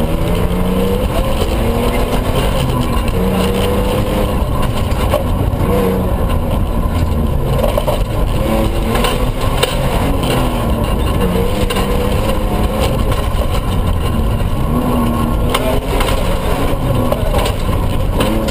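Toyota pickup rally truck's engine heard from inside the cab, revving up and dropping back again and again as the driver works through the gears at stage speed. Under it runs a heavy, steady rumble of tyres and suspension on the dirt road, with a few sharp knocks.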